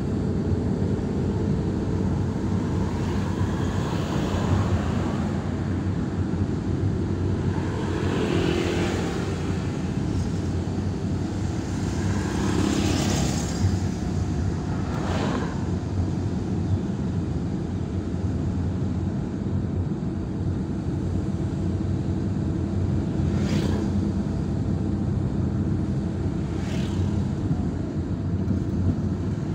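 Steady engine and road noise from the moving vehicle that carries the camera. Other vehicles passing rise and fade as brief swooshes several times, the clearest about 13 and 23 seconds in.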